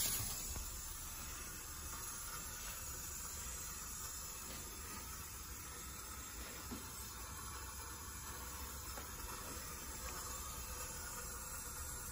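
Faint, steady hiss of water flowing through the pipe-flow rig's tubing and flow meter.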